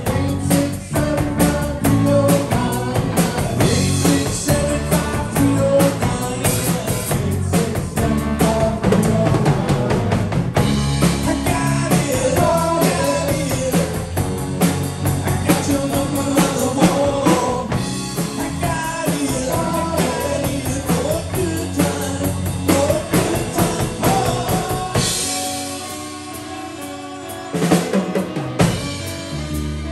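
Live rock band playing: electric guitars, bass guitar, keyboard and a drum kit, with a lead vocal. About 25 seconds in, the bass and kick drum drop out for a couple of seconds in a short break, then the drums come crashing back in.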